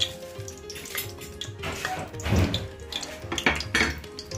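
Cooking oil crackling and popping as it heats in a pressure cooker, still not hot enough for the onions, over steady background music.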